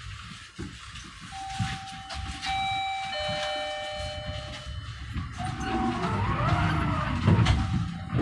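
Bombardier NGT6 tram running with a low rumble. For a few seconds from about a second in, steady electronic tones sound, then a whine rises and falls in pitch.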